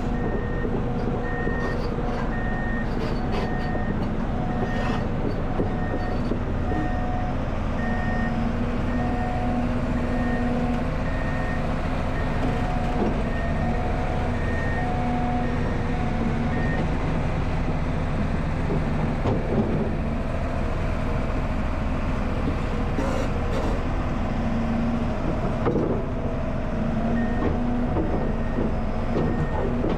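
Excavator diesel engine and hydraulics running steadily under load, with its warning alarm beeping at a steady pace; the beeping stops a little past halfway and starts again near the end. A few short knocks come through.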